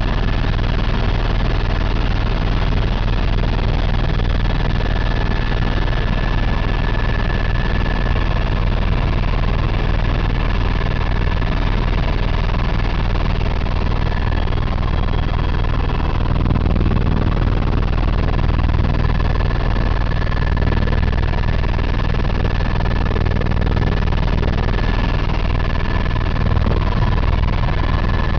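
Helicopter cabin noise in steady flight: a constant low rotor and engine drone with a steady high whine over it.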